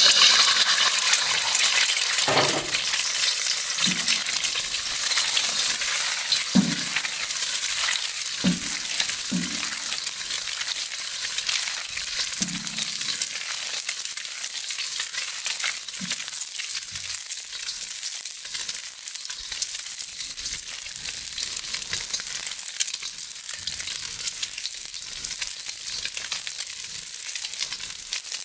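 An egg frying in hot oil in a carbon steel wok: a loud, dense sizzle and crackle that starts the moment the egg goes in and slowly eases off, with a few short low pops in the first half.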